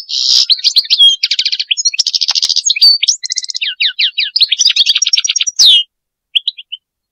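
European goldfinch singing a fast, varied twittering song of chirps, trills and buzzy notes. The song breaks off about six seconds in, followed by a few last short notes.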